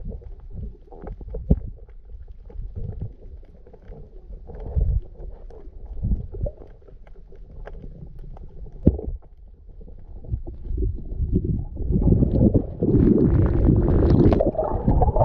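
Muffled underwater sound on a submerged camera: a low rumbling wash with scattered clicks and knocks. About twelve seconds in, it turns to a louder, rushing water noise.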